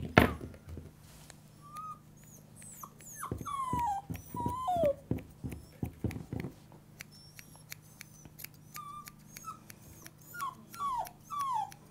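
Yorkshire Terrier puppy whining and whimpering in a string of short, high, falling whines. Steel thinning scissors snip at its leg hair with quick light clicks, more often in the second half.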